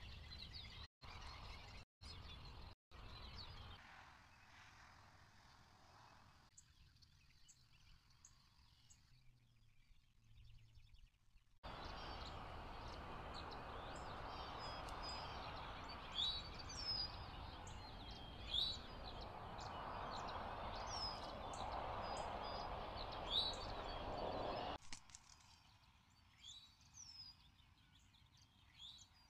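Outdoor ambience from a nest camera: small birds chirping in short high calls, scattered throughout. A steady hiss comes in abruptly about twelve seconds in and drops away about twenty-five seconds in, and the sound cuts out briefly three times in the first few seconds.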